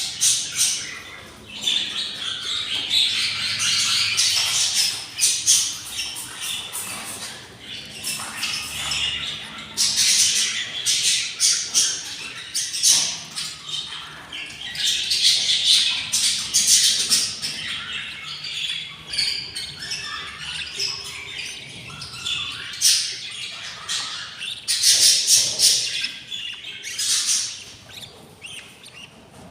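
Budgerigars chirping and squawking in a near-continuous chatter of rapid, harsh calls, with louder bursts a few times.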